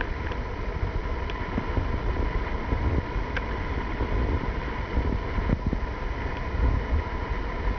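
Wind buffeting the microphone, with the faint steady high whine of a distant child's dirt bike.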